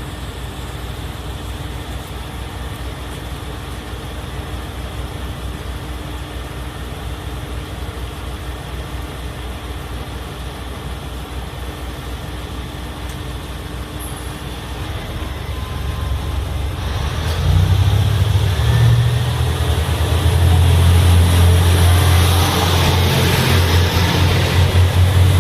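KiHa 189 series diesel railcar engines idling steadily with a low pulsing. About two-thirds of the way in, they throttle up to a louder, deeper running, as when the train powers away from the platform.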